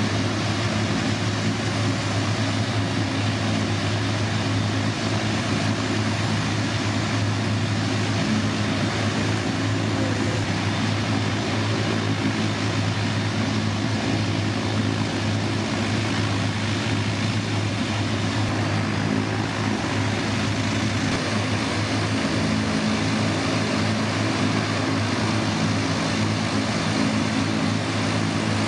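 Parked Boeing 787-8 Dreamliner running, a steady jet noise with a low hum underneath; the deepest part of the hum drops away about 21 seconds in.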